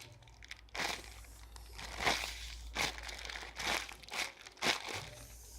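Packaging around a squishy toy crinkling as it is handled, in about five short rustles roughly a second apart.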